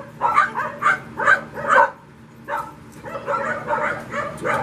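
Puppy yipping in quick, short, high barks, several a second, with a brief pause about halfway through.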